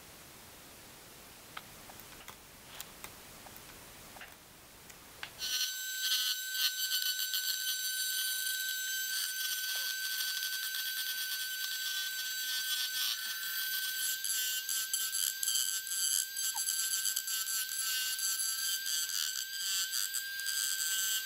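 A few faint clicks, then about five seconds in a small high-speed rotary tool starts and runs with a steady high-pitched whine, its level wavering as the bit cuts into the ABS plastic of a repaired transducer housing.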